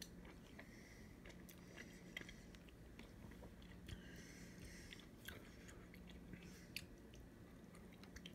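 Faint chewing of a hot dog with whole grain mustard: soft mouth clicks every second or so over a low steady hum.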